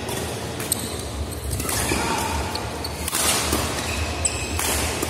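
Badminton rackets striking a shuttlecock in a doubles rally: sharp clicks, the loudest under a second in and near the end, over hall noise and the players' footwork.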